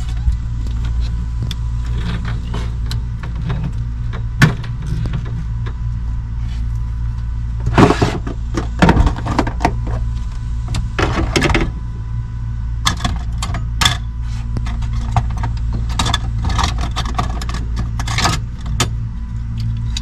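Metal hand tools and screws clinking and clattering as they are handled in a small plastic bin, in a string of irregular clicks that come thickest about halfway through and in the last third. A steady low hum runs underneath throughout.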